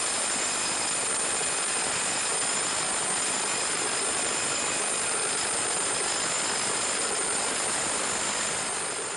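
Steady machine noise with a thin high whine over it, with no knocks or rhythm, fading out at the very end.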